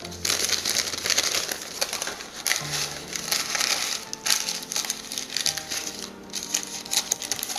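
Baking paper crinkling and rustling in irregular crackles as hands press and fold it into a cake tin to line it. Faint background music with held low notes plays underneath.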